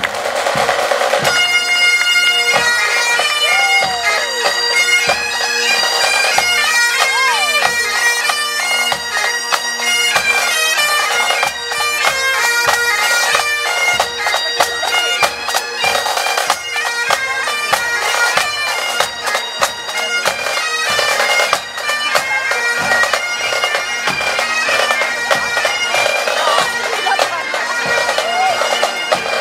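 Pipe band marching: bagpipes play a tune over their steady drones, with drums beating time. The pipes come in about a second in.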